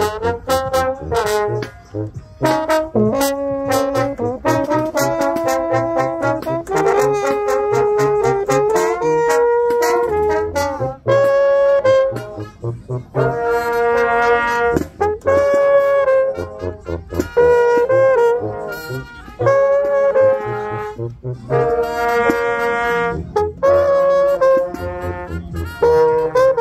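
Small marching-band brass group jamming: a close-up mellophone over trumpets, trombone and a sousaphone. They play a tune in loud phrases of short repeated notes and held notes, with a pulsing bass line and a few brief breaks between phrases.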